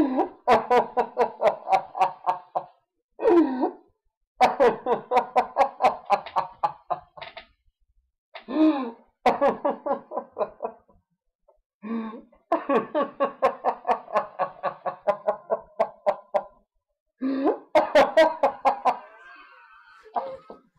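People laughing hard: long bouts of rapid ha-ha pulses, broken about four times by gasping in-breaths.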